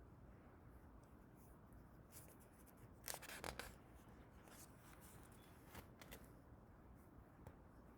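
Near silence: room tone with a few faint rustles and clicks, the longest brief cluster about three seconds in.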